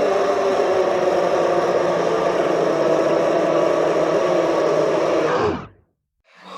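Monster growl sound effect: one long, steady growl that fades out about five and a half seconds in. After a short silence, the next creature sound begins near the end.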